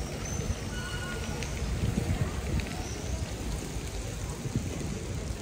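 Busy city street ambience: a murmur of passers-by's voices over a steady hiss and low rumble, with a few uneven low thumps about two seconds in.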